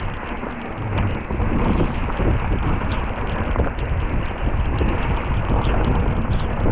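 Mountain bike running fast down a wet dirt trail: tyres rolling over the ground and the bike rattling over bumps in many short, sharp knocks, with wind buffeting the microphone as a low, steady rumble.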